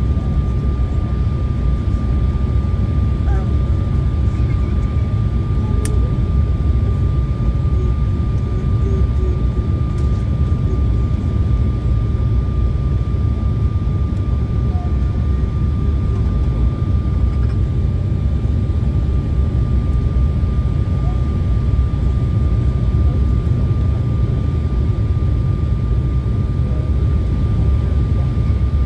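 Steady cabin noise inside an Embraer 175 airliner on approach: the low rumble of the jet engines and airflow, with a thin, steady high whine over it.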